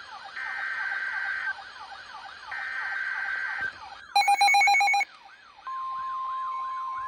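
Overlapping electronic emergency alert tones. A fast siren-like warble repeats throughout, while a beep sounds for about a second at a time, three times. A little past halfway comes a loud, brief burst of digital data tones, and then a steady single tone near 1 kHz starts about two-thirds in, like a weather radio's warning alarm tone.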